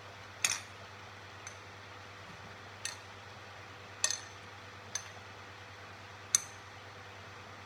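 Light metallic clinks from a metal utensil dangling on a wire and knocking against a hard surface: about six sharp taps, unevenly spaced, each with a brief high ring.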